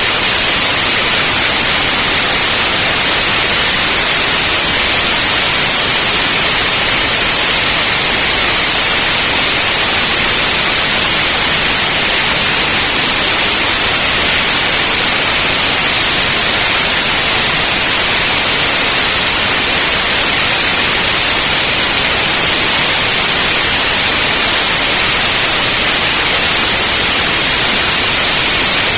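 Continuous, steady white noise: an even hiss, brightest in the high frequencies, unchanging throughout.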